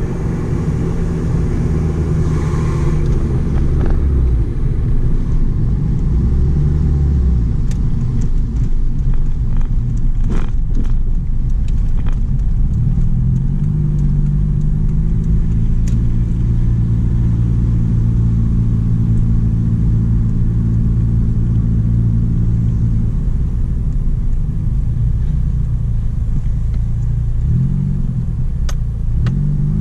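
Mitsubishi Lancer Evolution IV's turbocharged 4G63 four-cylinder running at low revs, heard from inside the cabin as the car rolls along slowly. Its drone holds steady through the middle with a few light clicks, then the pitch rises and falls twice near the end as the revs change.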